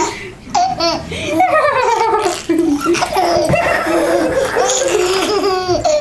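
A baby laughing hard, in high-pitched belly-laugh peals one after another.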